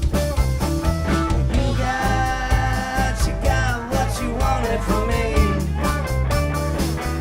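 Rock band playing, with a steady drum beat and bass under a guitar-led line whose notes bend in pitch through the middle.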